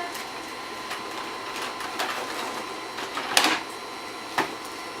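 Scattered clicks and knocks from an electronic organ's keys and switches being handled, with no notes sounding, over a faint steady electronic tone. The loudest knock comes about three and a half seconds in.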